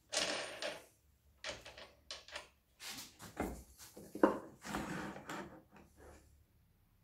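Tool rest of a homemade plywood lathe being shifted and clamped by hand: wood scraping and knocking on wood in several short spells, with a sharp click about four seconds in.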